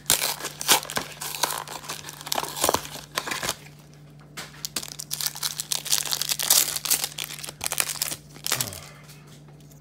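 Foil wrapper of a Pokémon trading-card booster pack being torn open and crinkled by hand, in two stretches of crackling with a short pause about three and a half seconds in; it stops about a second before the end.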